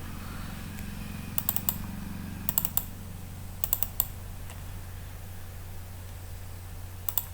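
Computer keyboard and mouse clicking in short clusters of three or four quick clicks, four times, over a steady low electrical hum.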